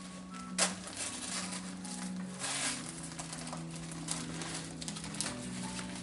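Rustling and crinkling of packaging as a plant is unwrapped by hand, with a sharp crackle about half a second in and a longer rustle around the middle.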